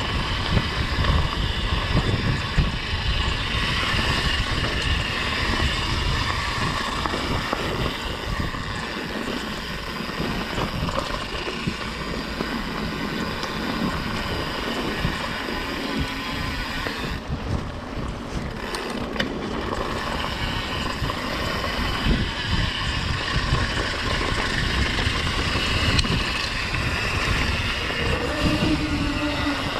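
Mountain bike riding down a dirt trail: wind buffeting the microphone, with tyre noise and the bike rattling over bumps throughout. The wind noise eases briefly a little over halfway through.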